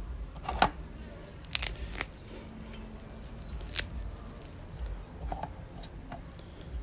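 Short crisp snaps and clicks as fresh green vegetable stems are broken off by hand and laid onto a raw oyster in its shell, a handful of sharp ones spread through, the loudest about two seconds in.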